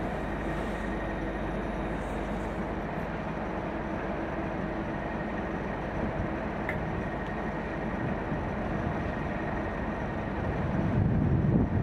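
Class 37 diesel locomotive's English Electric V12 engine running steadily with the test train at the platform: a constant low rumble with a thin high whine. Near the end a louder low rumble comes in.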